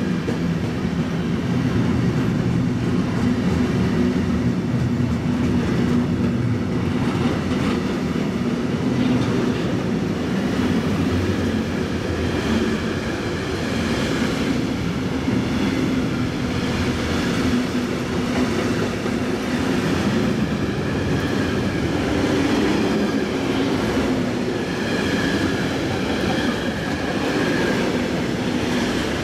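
Intermodal freight train wagons loaded with truck semi-trailers rolling past close by: a steady, loud rumble of steel wheels on rail, with high ringing tones from the wheels at times.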